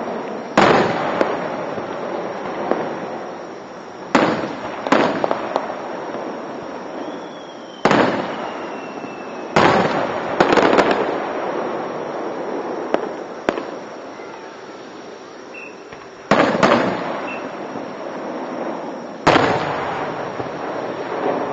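Aerial fireworks shells bursting overhead: about nine loud bangs at irregular intervals, some in quick pairs, each trailing off in a long rumbling echo. A faint whistling tone glides slowly down around seven to nine seconds in. Picked up by a dashcam microphone.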